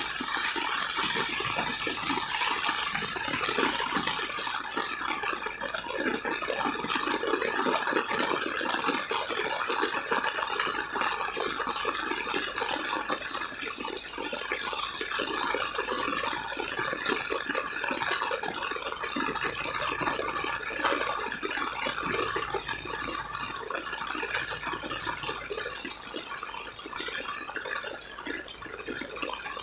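Heavy rain pouring steadily, mixed with the rush of running water.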